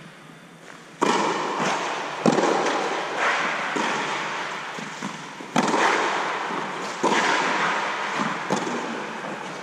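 Tennis ball struck by rackets in a rally: about five sharp hits, the first about a second in, each leaving a long echo under the inflated tennis dome.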